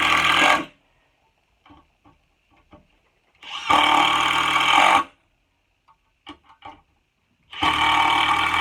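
Klein Tools cordless impact driver hammering 2-inch Phillips screws into pressure-treated wood in three bursts of about a second and a half each, with short pauses and faint clicks between. The screws are going into only 1/8-inch pilot holes, so the driver has to work harder to seat them.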